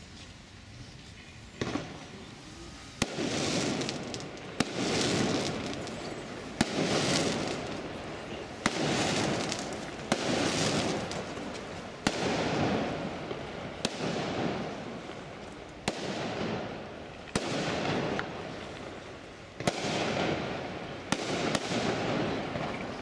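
Fireworks going off: a run of sharp bangs about every one and a half to two seconds, starting about a second and a half in, each followed by a noisy tail that fades over a second or so.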